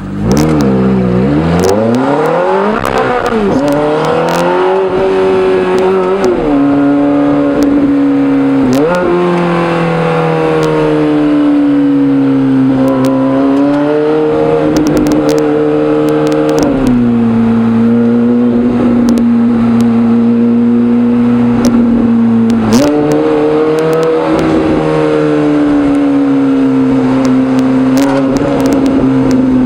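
Straight-piped Ferrari F430 V8 accelerating hard, its revs climbing and dropping through several quick upshifts. It then settles into a steady drone at cruising revs, rising again briefly about two-thirds of the way through, heard from the open cockpit.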